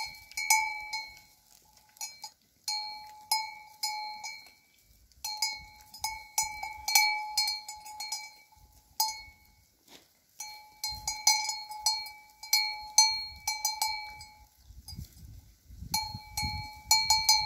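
Bells worn by grazing sheep and goats clanking irregularly as the animals move their heads. The clanks come in spells of a few seconds with short pauses between, each ringing with the same metallic tone.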